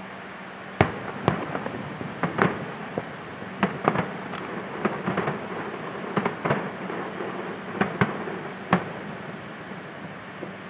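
Aerial fireworks shells bursting in a rapid, irregular series of sharp bangs. The first and loudest comes about a second in, and the bangs die away near the end.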